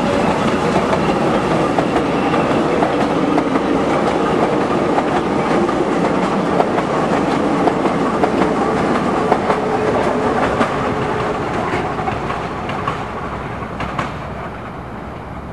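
Soviet E-series metro train running past, its wheels clicking over rail joints with a steady hum under the rumble. The sound fades over the last few seconds as the train draws away.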